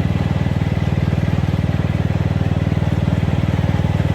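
Riding lawn mower's engine running steadily as it is driven along, with an even, rapid pulsing.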